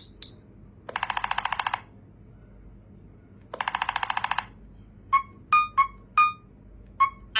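Nothing Phone (1) ringtone sounds from the phone's speaker: two short buzzy, rattling bursts, then a quick run of five short plucked notes.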